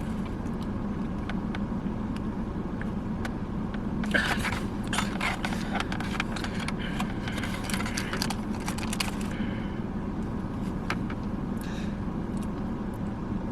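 Steady low hum inside a car cabin, with a stretch of crinkling and rustling with small clicks from about four to nine and a half seconds in.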